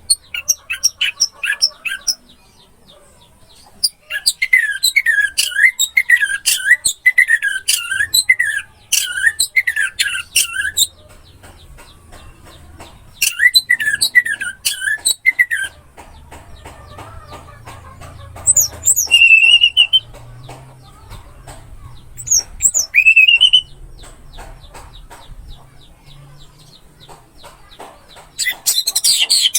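Orange-headed thrush singing: phrases of quickly repeated notes broken by pauses, short rising whistles, and a dense scratchy burst near the end.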